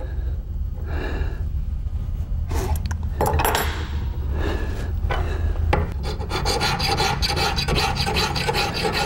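A large hand file rasping across spring steel clamped in a bench vise, tapering the leg of a new shotgun leaf spring to thin it. The strokes are separate at first and turn fast and continuous about six seconds in.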